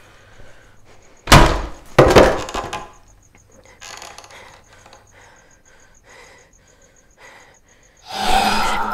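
Two heavy bangs on a wooden door, about two-thirds of a second apart, each ringing briefly, followed by fainter knocks and creaks. A faint high ticking runs underneath, and a loud sustained swell begins near the end.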